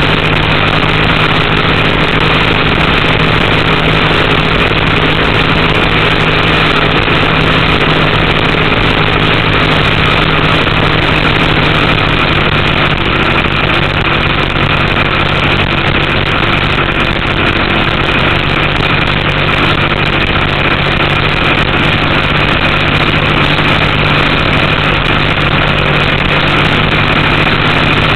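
A race boat's Chevrolet engine running steadily on board at an even, held-back throttle, over a constant rush of wind and water. The engine is being kept at reduced speed because of an oil pressure problem.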